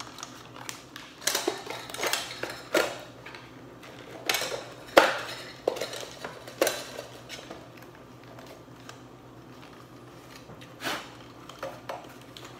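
Metal parts of a lamp socket clinking and knocking as it is worked into the hole in a camera's top: a string of sharp clicks and taps, the loudest about five seconds in, then a quieter stretch and one more knock near the end.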